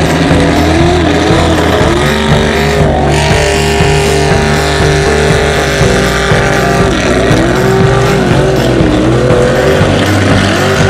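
Mud truck's engine at full throttle, its pitch surging up and down as the revs rise and fall, with water and mud spraying as it churns through a flooded bog pit.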